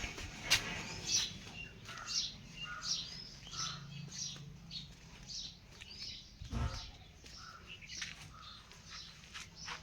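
Small birds chirping over and over, short high chirps about twice a second. A sharp knock comes about half a second in and a dull thump about six and a half seconds in.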